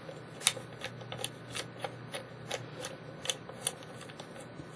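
Light, irregular clicks and small metallic scrapes as a camera is screwed onto a flash bracket by its tripod thumbscrew. There are about a dozen clicks, the sharpest about half a second in.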